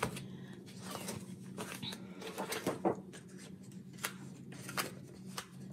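Paper planner pages rustling, with irregular light clicks and taps as loose inserts are handled and fitted into the planner.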